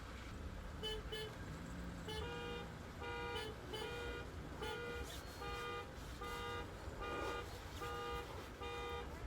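Car alarm going off: a car horn honking over and over in a steady rhythm, a little more than one honk a second, somewhat faint.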